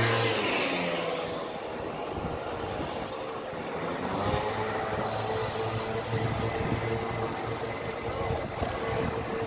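Street noise heard from a moving bicycle: a steady rush of wind and tyres with a motor vehicle's engine hum, its pitch falling in the first second and rising again about four seconds in.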